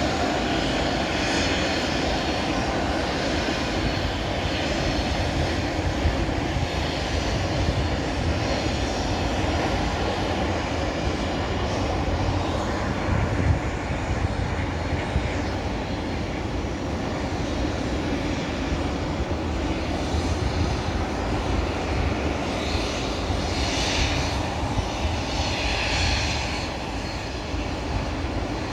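Boeing 737-300F's CFM56-3 turbofan engines running at taxi power: a steady jet rumble with a couple of brief louder swells near the end.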